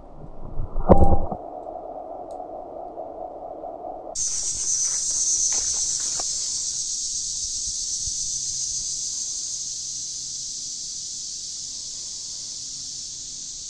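Slowed-down replay sound of a 7.62x54R armour-piercing incendiary bullet striking a watermelon: a deep, drawn-out thump about a second in, then a low drone. Just after four seconds it cuts abruptly to a steady, high-pitched chorus of insects that slowly fades.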